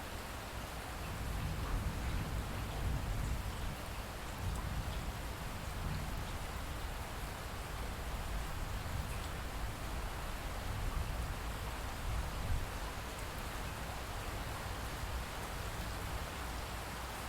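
Light steady rain and dripping after a thunderstorm, with a low rumble of distant thunder underneath that swells about a second in.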